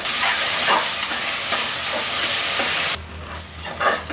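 Onion-tomato masala with freshly added ginger-garlic paste sizzling loudly in hot oil in an aluminium pressure cooker as a perforated steel ladle stirs it. The sizzle cuts off suddenly about three seconds in, leaving quieter ladle scrapes.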